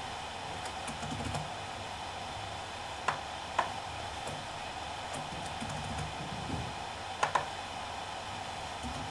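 Seagate BarraCuda ST2000LM015, a 2 TB 2.5-inch 5400 rpm SMR hard drive, spinning with a steady whir while its heads seek in soft, irregular low chatter. Sharp seek clicks stand out: two about half a second apart near the middle and a quick pair about two-thirds in.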